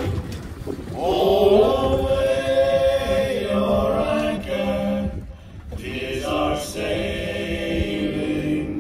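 Voices singing a slow sea shanty-style song in long held notes, pausing briefly about five seconds in, over a low rumble of wind on the microphone.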